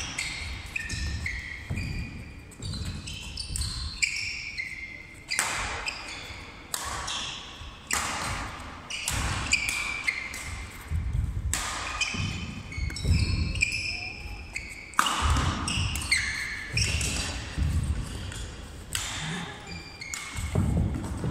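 Badminton rally: rackets strike the shuttlecock in a fast exchange of sharp hits, with court shoes squeaking and stepping on the wooden floor. The sounds echo in a large sports hall.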